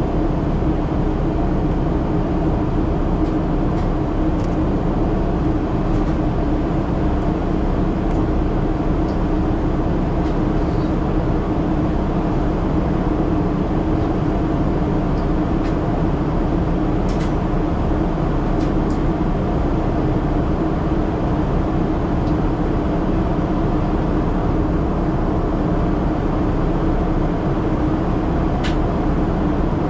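Steady cabin roar inside a Boeing 777-300ER climbing out: engine and rushing-air noise with a steady low hum from its GE90 engines. A few faint ticks sound over it.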